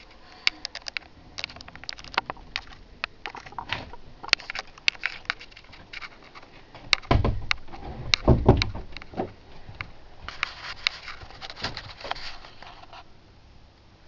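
Scattered clicks and knocks from someone moving about and handling things, with a few heavier thumps about halfway through, like footsteps on the floor, and a brief rustle near the end.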